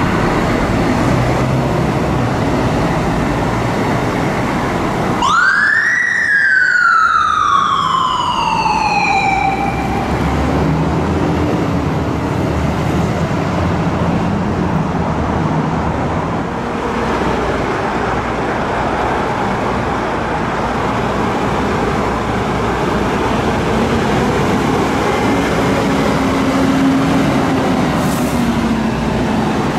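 Fire engine siren giving one wail about five seconds in, climbing quickly and then sliding slowly down over about four seconds. Fire truck engines run steadily underneath as the trucks pull out.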